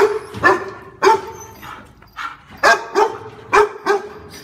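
A dog barking, about eight sharp barks with uneven gaps, several coming in quick pairs.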